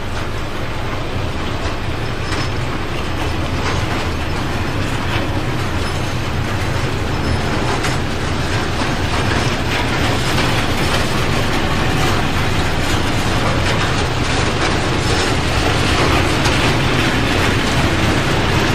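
Loaded freight wagons rolling past on steel rails: a steady low rumble of wheels with scattered clicks and clattering, growing slowly louder.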